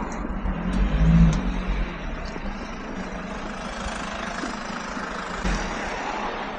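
Truck running, a steady rush of engine and road noise, with a louder low rumble about a second in.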